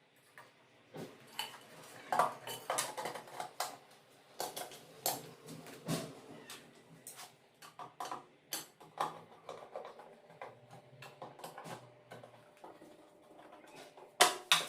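Irregular clinks, knocks and clatter of small hard objects, such as tools or fittings, being handled, with the loudest knock near the end. A faint steady low hum runs underneath.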